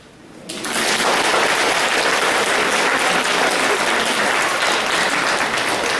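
Audience applauding, starting suddenly about half a second in and carrying on steadily.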